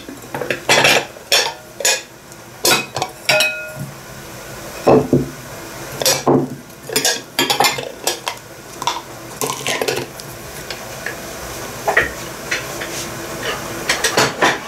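Glass and ceramic bowls clinking and knocking as they are handled, a string of separate clinks, one ringing briefly about three seconds in.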